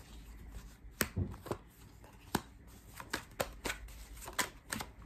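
Tarot cards being shuffled by hand: a run of irregular light snaps and flicks of card against card.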